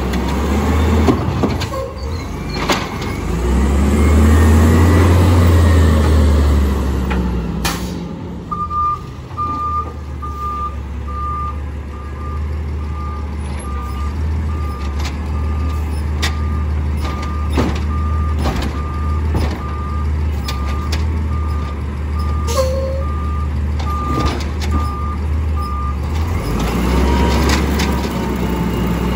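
Natural-gas automated side-loader garbage truck: the engine revs as the hydraulic arm works, then a backup alarm beeps steadily, a little more than one beep a second, for about seventeen seconds while the truck reverses. Near the end the engine revs again as the arm grabs a cart, with scattered knocks.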